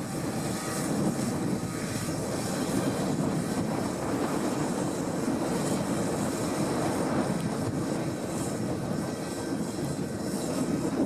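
New Holland T7040 tractor engine running steadily while pulling a seed drill, a continuous even engine drone with a steady hum in it.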